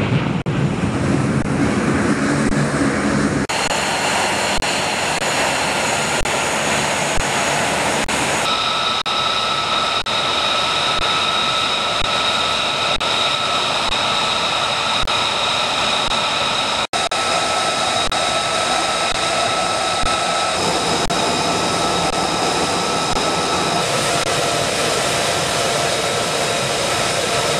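Jet engine noise: a low rumble for the first few seconds, then a steady high-pitched whine of a jet running on the ground.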